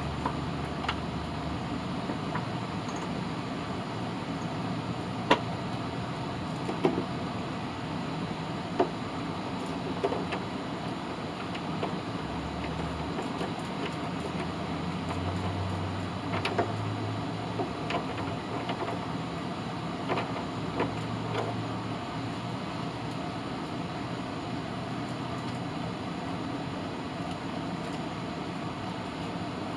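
Scattered light clicks and knocks of a hand wrench and a steel bolt on the mower's metal parts as a 12 mm bolt is threaded in and turned, over a steady background hum.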